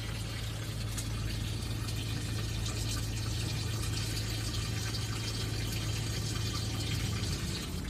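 Water running steadily from a tap, with a steady low hum underneath.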